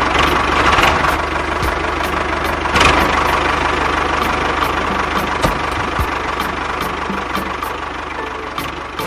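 A small engine running steadily, with a regular ticking about three times a second.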